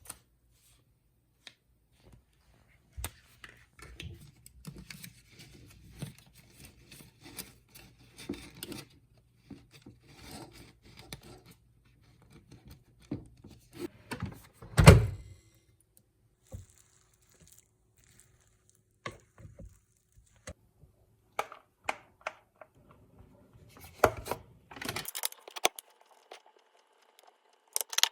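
Objects being handled in a small room: scattered rustles, light knocks and clicks, with one loud thump about halfway through and a burst of rustling near the end.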